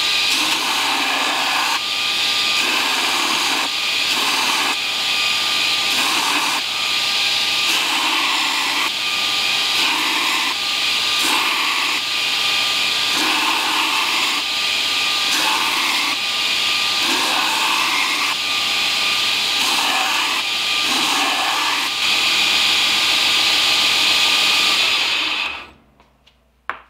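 A belt grinder grinds the bevel of a steel puukko knife blade, drawn across the running belt in repeated passes about once a second. The grinding cuts off suddenly near the end.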